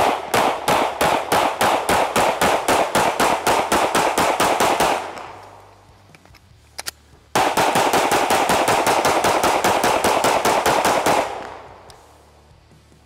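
Springfield Armory Echelon 9mm striker-fired pistol fired in two rapid strings, about five or six shots a second, each string lasting several seconds. There is a short pause between them with a couple of faint clicks, and the last shot of each string dies away.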